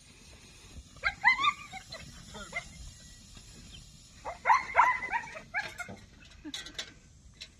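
Working dog barking in two bursts of several quick barks, about a second in and again around four and a half seconds in.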